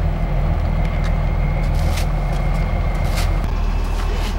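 Dump truck's engine running steadily at crawling speed, a constant low drone. A few short hissing or scraping bursts come over it about 2 and 3 seconds in.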